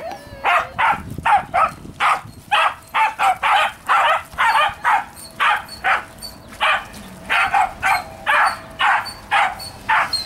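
A dog barking over and over, short barks at about two a second.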